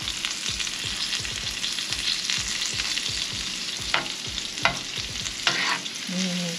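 Onions, garlic, wiri-wiri pepper and sage sizzling as they caramelize in butter in a hot pan, stirred with a utensil that knocks and scrapes against the pan, with a few sharper clacks between about four and five and a half seconds in.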